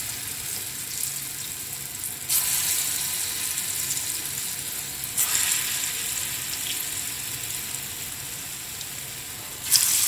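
Chana dal dhoka pieces sizzling as they shallow-fry in hot vegetable oil in a nonstick frying pan. The sizzle jumps suddenly louder three times as another piece is slid into the oil.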